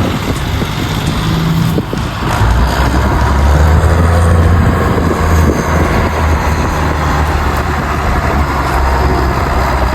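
Diesel engines of farm machinery at work on a silage harvest, running steadily with a deep hum, loudest about four seconds in.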